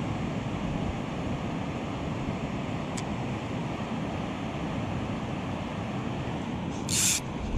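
Steady rush of water pouring down a concrete dam spillway into the pool below. Near the end, a short high hiss as fly line is stripped in by hand.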